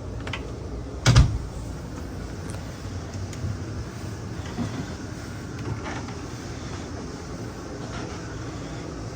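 Steady low hum with one loud thump about a second in, followed by a few lighter knocks and clicks.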